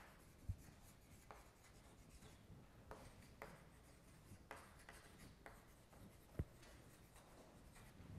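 Faint chalk writing on a chalkboard: short scratches and taps of the chalk stick as words are written. Two soft low thumps stand out, one about half a second in and one about six seconds in.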